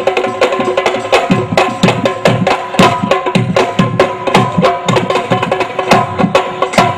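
Music led by a hand drum playing a quick rhythm of sharp strokes and deep bass strokes that bend in pitch, over steady held tones.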